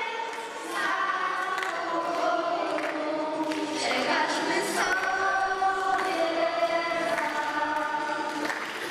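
Choir of children and young people singing a song together, with long held notes.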